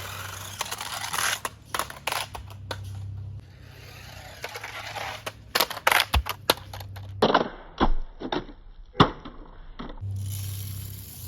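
Toy cars rolling and clattering down a plastic slide: a rolling rumble broken by a run of sharp clacks and knocks, the sharpest about nine seconds in, over a steady low hum.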